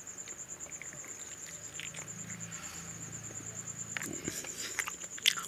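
Hand-eating sounds: chewing, with a few wet smacks and clicks from the mouth and from fingers mixing rice and curry, bunched near the end. Under them a steady, high-pitched pulsing trill runs throughout.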